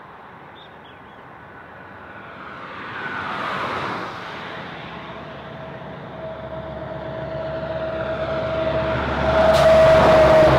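Highway traffic passing: one vehicle rushes by about three seconds in. Then a semi-truck hauling a shipping container approaches with a steady whine that grows louder, and it is loudest as it passes close near the end.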